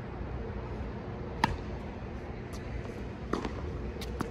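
Tennis balls struck by racquets and bouncing on a hard court in a soft mini-tennis rally: one sharp pop about a second and a half in, then three softer hits and bounces close together near the end, over a steady background hum.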